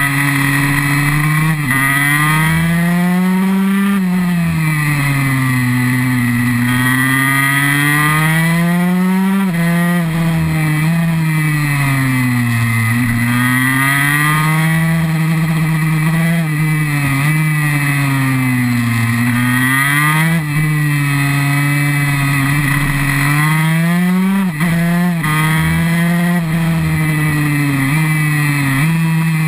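KTM 144 SX supermoto's 144 cc two-stroke single-cylinder engine under hard riding, its pitch climbing and dropping every few seconds as the rider opens the throttle out of corners and backs off into the next, with a couple of brief throttle cuts near the end.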